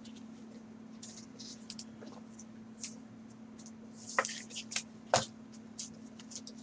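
Gloved hands handling a trading card and sliding it into a rigid plastic top loader: scattered rustles and small plastic clicks, the sharpest about four and five seconds in, over a steady low hum.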